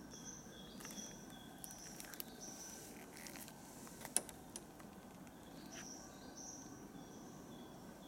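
Rainforest ambience: a chorus of short, high-pitched chirps repeating at two alternating pitches over a steady faint whine, with scattered light clicks and one sharp click about four seconds in.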